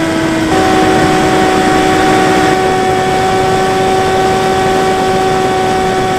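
Electric motor and propeller of a Bix3 RC plane whining steadily in flight, heard from a camera on the plane over a haze of wind noise. The pitch steps up a little about half a second in, then holds.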